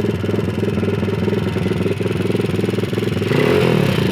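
WPB pit bike's single-cylinder engine idling with an even, rapid pulse, then getting louder a little over three seconds in.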